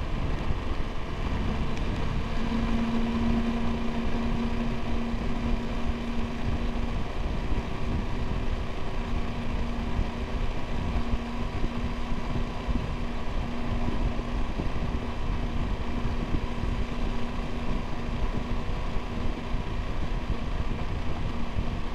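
Triumph Tiger 1200 GT Explorer's three-cylinder engine running at a steady cruise, a level engine drone over wind and road noise.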